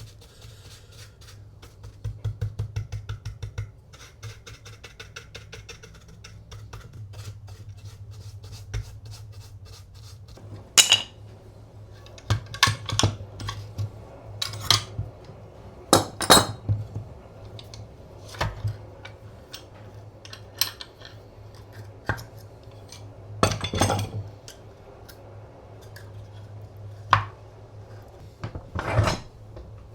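Antique wooden coffee grinder being handled while oil is rubbed into it: a few seconds of quick rubbing strokes, then scattered sharp clinks and knocks of wood and metal parts, over a steady low hum.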